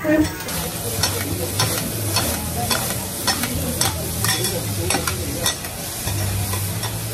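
Noodles and vegetables sizzling on a flat-top griddle as metal spatulas stir and scrape them, with frequent sharp taps of metal on the hot plate. The sizzle starts about half a second in.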